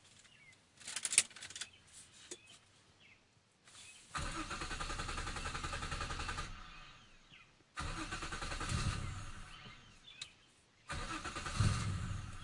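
Starter cranking the 1997 Nissan Maxima SE's 3.0 V6 in three separate tries of about two seconds each, with a louder surge late in the second and third tries before each one fades. The engine is hard-starting and needs repeated attempts to catch. Sharp clicks come about a second in, before the first try.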